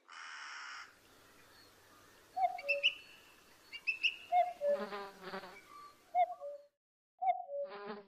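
Wild birds calling: a low two-note call, the first note higher than the second, repeats every second or two, with brief higher chirps between. A short buzz opens it.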